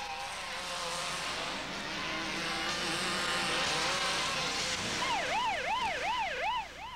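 A vehicle rushes past on a dirt road, then about five seconds in a police-style car siren starts, yelping quickly up and down about three times a second.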